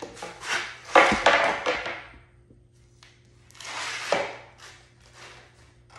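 Wooden boards knocking on a work surface and against each other as they are laid down and pushed flush: a loud knock about a second in and another near four seconds, with rubbing and scraping around them.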